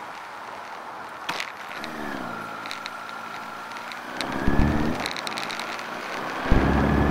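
Motorcycle engine at a standstill: its note drops and settles into idle about two seconds in, is revved briefly about four seconds in, then is opened up harder and held near the end. A few sharp clicks sound along the way.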